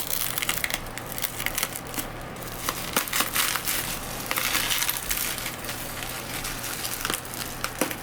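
Parcel packaging crinkling and crackling as it is handled and opened, a dense run of irregular crackles.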